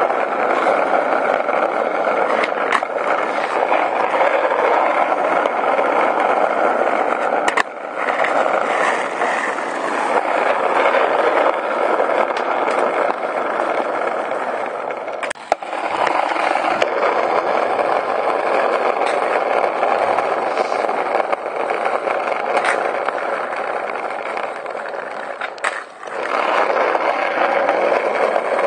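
Skateboard wheels rolling over rough asphalt, a loud steady rumble close to the microphone. It is broken three times by a brief drop with a sharp click.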